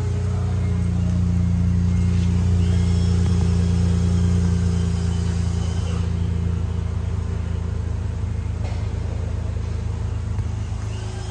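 2011 Dodge Caravan's 3.6-litre Pentastar V6 running steadily at idle, a low exhaust rumble heard at the tailpipe.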